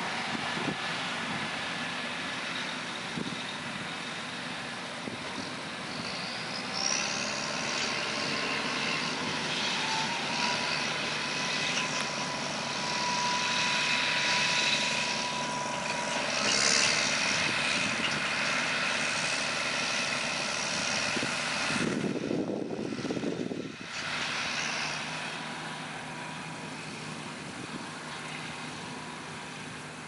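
Steady engine and machinery noise of corn-harvest equipment, a combine harvester working the field and a tractor pulling a grain cart. About three-quarters of the way through the sound changes abruptly and settles to a quieter, steady engine hum.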